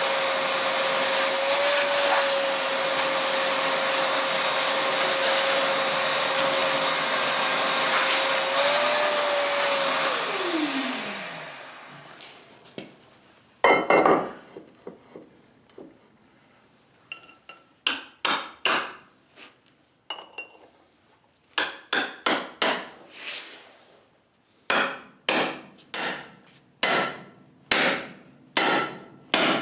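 An electric drill runs steadily and then winds down to a stop. Then a hammer drives steel railroad spikes into a wooden railroad tie: sharp ringing metal blows, scattered at first and then falling at a steady pace.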